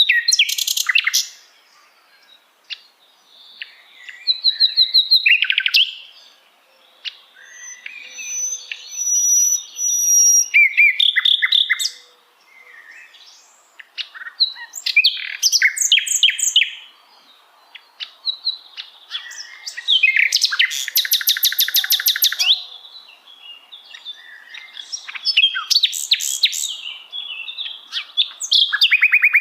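Common nightingale singing: varied phrases a second or two long, separated by short pauses, that mix pure high whistles with fast trills of rapid notes. About two-thirds of the way through comes a longer, loud run of rapidly repeated notes.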